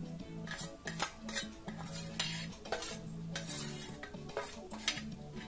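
Metal spoon clinking and scraping against a glass bowl and a plate while pickled beans are moved about, in a string of irregular clinks.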